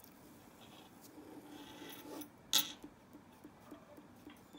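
Ballpoint pen scratching faintly on paper while a shape is drawn, with one sharp clink about two and a half seconds in.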